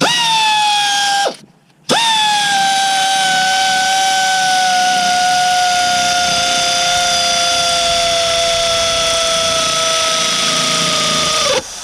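Cordless electric ratchet running a starter bolt in. The motor whines in a short burst, stops, then runs again for about ten seconds, its pitch sinking slowly as the bolt draws up under load.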